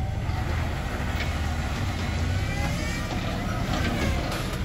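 Toyota pickup's engine running steadily at low revs as the truck crawls over boulders, a low rumble.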